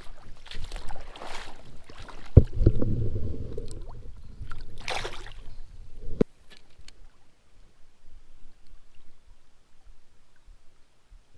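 Water splashing and sloshing close to the microphone as a small smallmouth bass is let go into the creek, with one louder splash about five seconds in. The sound cuts off suddenly after about six seconds, and a few light clicks follow.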